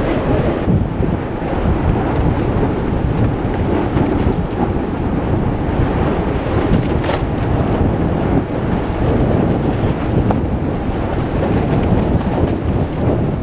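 Strong wind buffeting the microphone: a loud, unbroken low rumble that rises and falls without pause.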